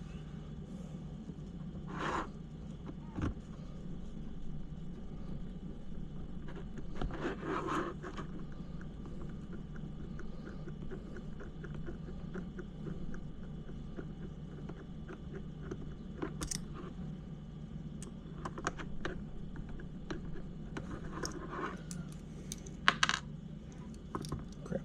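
Small metal screws and a hand driver clicking and scraping against the parts of an RC crawler's transmission and chassis, in scattered light clicks with a few short scraping spells and one sharper click near the end. A steady low hum runs underneath.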